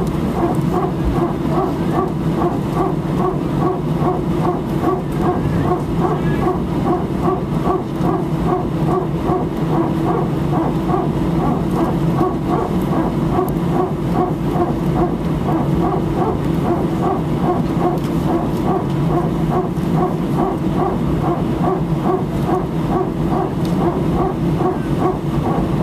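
Airbus A319's hydraulic power transfer unit (PTU) running in the cabin, the well-known 'barking dog' noise of the A320 family: a rhythmic pulsing bark about two to three times a second over a steady low hum. It is the PTU moving pressure between the aircraft's two hydraulic systems while only one engine is driving them.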